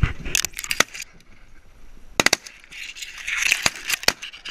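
Dry reeds and grass of a hunting blind crackling and snapping as it is brushed and pushed aside, with several sharp clicks in small clusters.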